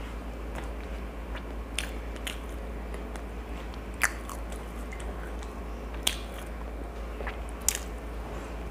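A person chewing and biting pav bhaji, soft bread rolls dipped in vegetable curry, close to a clip-on microphone, with short sharp wet mouth clicks every second or two, the loudest about four seconds in. A steady low hum runs underneath.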